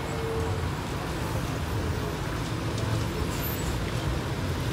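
Slow, stop-and-go road traffic of buses and cars, their engines idling in a steady low rumble. A steady horn note stops about half a second in.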